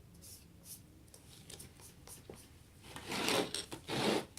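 Kinetic sand being rubbed and scraped by hand as it is spread over a sand cake: faint crackling, then two louder rasping scrapes near the end.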